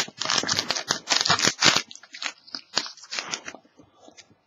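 Foil wrapper of an Upper Deck SPX hockey card pack crinkling and tearing as it is opened, dense for about the first two seconds. Then come sparser rustles and light ticks as the cards are handled.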